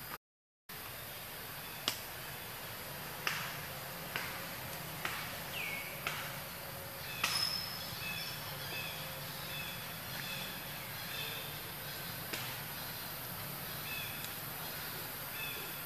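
Forest ambience with a steady high insect drone. A series of short sharp chirps and clicks, some falling quickly in pitch, comes in the first half. From about eight seconds in, short high piping notes repeat.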